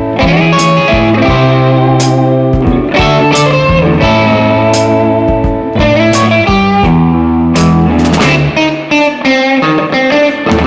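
Bluesy electric guitar music over sustained bass notes, with sharp percussive hits about every second and a half.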